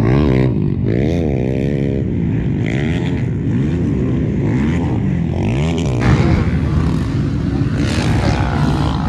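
Several motocross bikes running on the track, their engines revving up and down over and over, the pitches overlapping.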